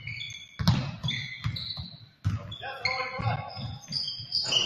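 Youth basketball game in a gym: a ball thudding on the floor and sharp, short squeaks of sneakers on the court, with voices in the background.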